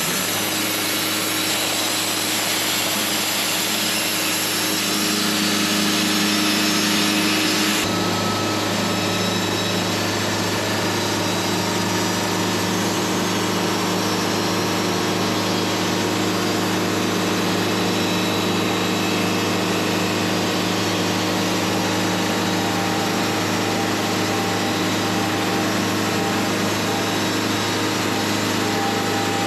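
Wood-Mizer LT70 bandsaw mill running steadily, its band blade cutting lengthwise through a black walnut log as the saw head travels down it. The engine hum and cutting noise stay even, with a sudden change in tone about eight seconds in.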